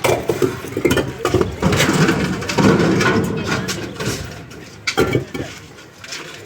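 Cut building stones knocking and clattering against one another as they are unloaded and stacked, with the strikes thinning out toward the end.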